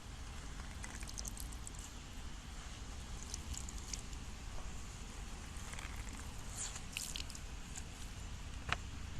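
Soft crackling, squishing and small clicks of a soft material being pressed or cut by hand, in scattered clusters with a sharper click near the end, over a low steady hum.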